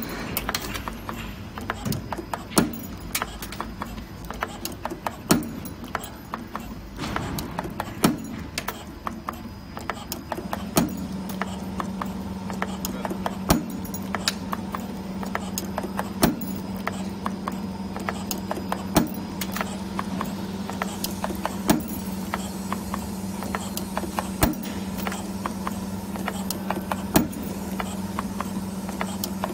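CNC camless spring forming machine running, its tool slides clicking and knocking rapidly as they bend 1.8 mm wire, with a louder knock repeating about every two and three-quarter seconds in a regular forming cycle. A steady low hum sets in about a third of the way through.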